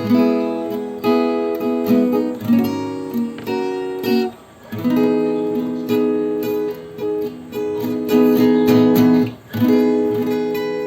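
Background music: acoustic guitar strumming chords, with short breaks about four and nine and a half seconds in.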